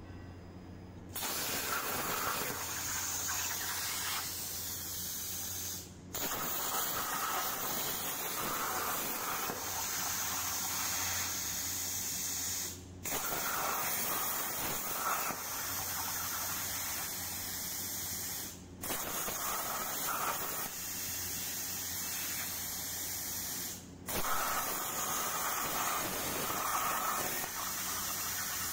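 Hypertherm Powermax85 air plasma torch cutting 10-gauge steel at 45 amps with FineCut consumables: a loud, even hiss of the arc, starting about a second in. It cuts out briefly four times between cuts and starts again each time, over a steady low hum.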